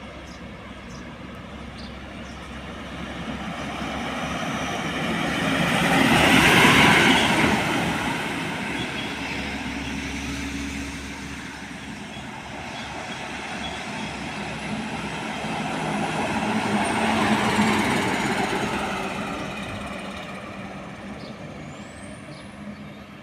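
Two heavy diesel trucks passing one after the other on a road, each engine and tyre noise building to a peak and then fading as it goes by, the first louder than the second.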